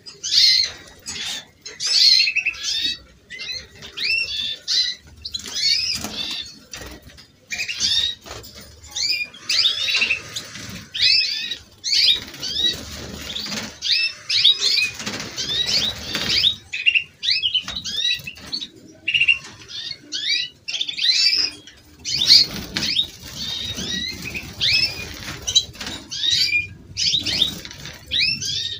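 Domestic canaries singing: fast runs of repeated chirps and trills with short pauses, with rougher noise beneath the song in a few stretches.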